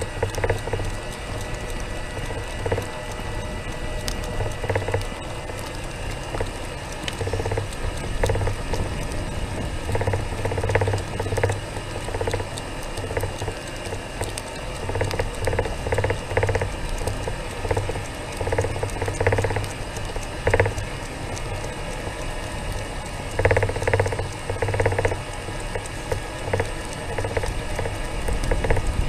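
A small vehicle rolling slowly along a concrete street, with irregular rattles and knocks as it rides over the pavement.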